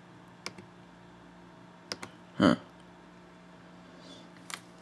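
A few sharp clicks from a MacBook Pro's keyboard and trackpad over a steady low hum, with one louder short knock about halfway.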